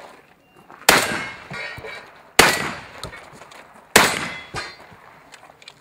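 Three shotgun shots about a second and a half apart, each a sharp bang that dies away over about a second.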